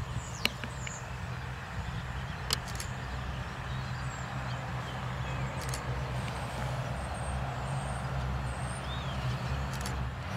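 A Dash 8 Q400's two Pratt & Whitney PW150A turboprops running on the ground, a steady low propeller drone that grows slowly louder as the aircraft turns on the runway.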